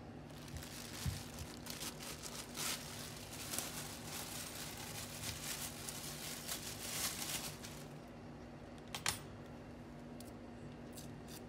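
Thin plastic produce bag crinkling and rustling, a dense run of crackles lasting about eight seconds, followed by a single sharp click. A faint steady hum sits underneath.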